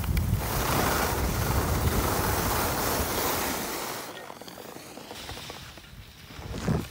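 Skis sliding and scraping over packed, groomed snow with wind buffeting the microphone: a loud rushing hiss for about four seconds, then quieter, with a brief louder swell near the end.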